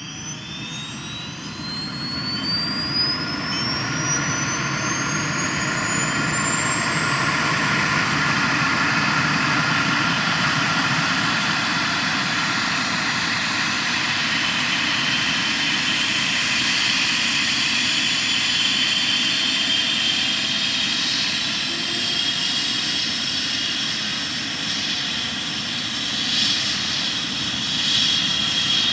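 Airbus H135 helicopter's turbine engines starting up: a high whine rising steadily in pitch over a growing roar. The sound builds for about the first eight seconds, then holds steady as the engines run up.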